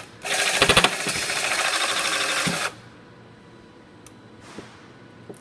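Pro Spot self-piercing-rivet tool running with its removal mandrel, pressing a rivet out of a triple-layer aluminium panel. A steady motor noise runs for about two and a half seconds, with a few sharp knocks near its start, then stops abruptly.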